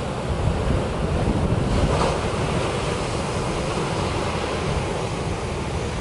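Wind buffeting the microphone over the steady wash of breaking surf, with the surf swelling louder about two seconds in.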